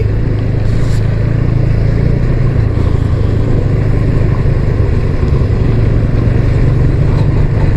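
Motorcycle engine running steadily while riding: a constant low engine hum under a continuous rush of wind and road noise.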